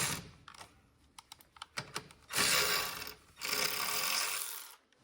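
Hand ratchet wrench clicking in three short runs of about a second each, with a few separate clicks between, loosening the nut on the negative battery terminal.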